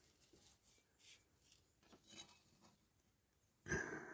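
Near silence with a few faint small clicks, then a brief rubbing scrape near the end as a small diecast toy body and a wooden applicator stick are handled.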